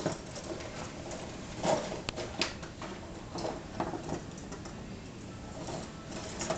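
A cat batting at and rustling the branches of a Christmas tree: irregular light rustles and taps, several scattered over a few seconds, the loudest about a second and a half in.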